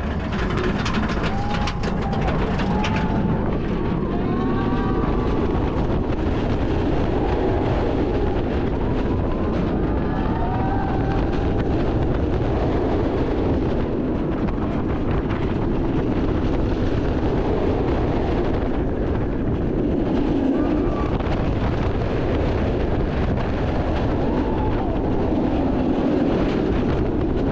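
Kumba, a Bolliger & Mabillard steel roller coaster, heard from onboard: the train rumbles steadily along the steel track.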